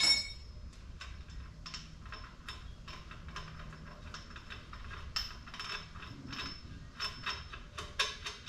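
A wrench turning the screw of a coil-spring compressor on a car's front strut, making a run of short metallic clicks about two to three a second as the spring is compressed. A sharp metal clank rings out right at the start.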